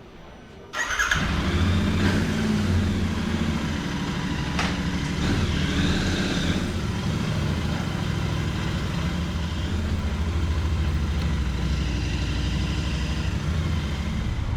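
Royal Enfield Interceptor 650's parallel-twin engine running steadily, coming in suddenly about a second in.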